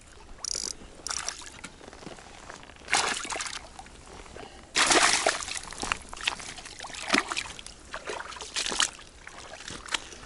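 Shallow river water splashing and trickling as a hooked pike is landed by hand at the bank's edge, with a loud splash about five seconds in.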